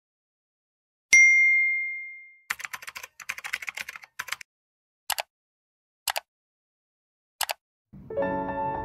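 A computer notification chime rings once and fades, followed by a quick run of keyboard typing sound effects and then three single clicks about a second apart. Soft piano music starts near the end.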